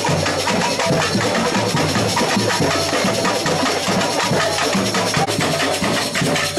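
Samba batucada percussion band playing a steady, dense drum rhythm.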